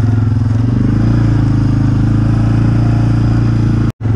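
A vehicle engine running steadily, its pitch rising a little about a second in, with a brief break in the sound near the end.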